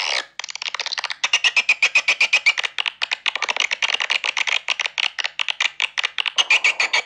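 Swiftlet calls from a swiftlet-house lure sound recording: a fast, rattling chatter of sharp clicks, about ten a second.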